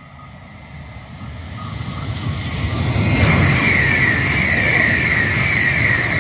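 Iryo S-109 (Frecciarossa 1000) high-speed electric train passing at speed. The rush of wheels and air builds over about three seconds, stays loud with a high whine while the cars go by, and starts to fade at the end.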